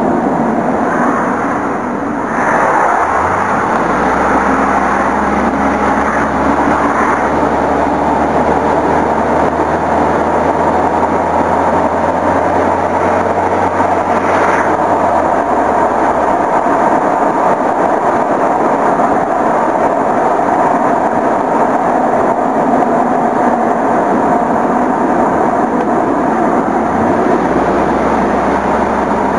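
Car driving along, heard from a camera mounted on the outside front of the car: steady rushing wind and tyre-on-road noise, with a low engine drone that fades out about halfway through and comes back near the end.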